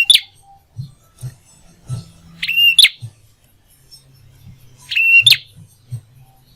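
A prinia (prenjak) calling: a short, clear held note followed by a sharp upward flick, repeated about every two and a half seconds. Faint low knocks sound between the calls.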